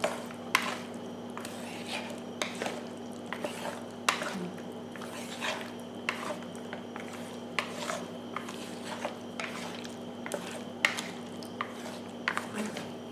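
Wooden chopsticks stirring chicken wings through a wet flour-and-egg batter in a plastic bowl, with irregular clicks and knocks as the chopsticks strike the bowl and each other.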